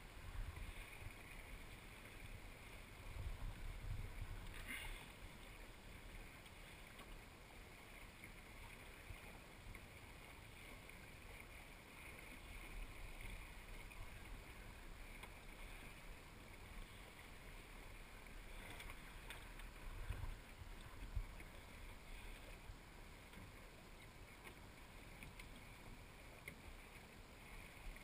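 Water washing along the hull of a small sailing dinghy under way, with wind rumbling on the microphone now and then and a couple of faint knocks.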